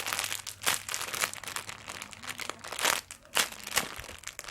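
Crinkling and rustling as a jumbo donut squishy toy is handled and squeezed, in several short separate bursts.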